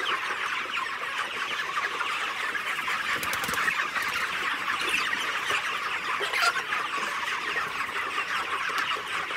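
A large flock of broiler chickens in a shed, calling together: a dense, steady chorus of many short peeps and clucks with no pause.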